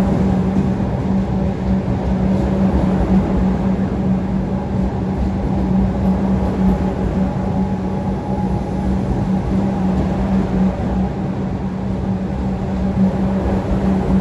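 EDI Comeng electric suburban train passing, a steady low hum over a continuous rumble.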